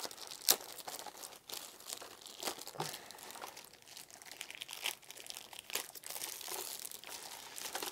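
Plastic bag crinkling and rustling as a keyboard is pulled out of it, in irregular bursts with a few sharp crackles.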